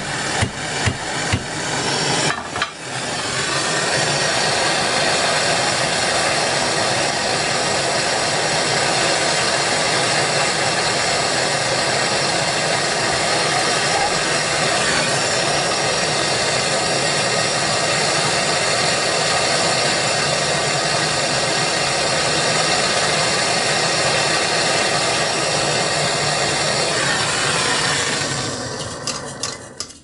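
A few seconds of quick sharp taps, then a hand-held Bernzomatic propylene torch burning steadily against a cheap padlock with an even rushing noise while the lock melts and throws sparks. The noise fades out near the end as the torch is taken away and shut off.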